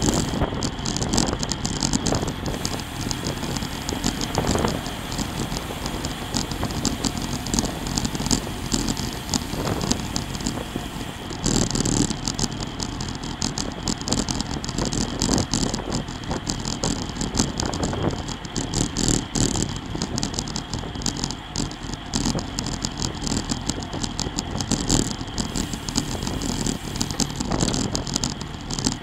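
Wind and road noise on a bike-mounted camera's microphone while riding a road bike at about 25–30 mph: a steady rush of air and tyre noise with many small clicks and rattles from the bike and mount.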